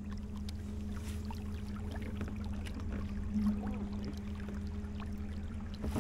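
A small boat motor running at a steady speed, a constant low hum, with water splashing and lapping against the hull.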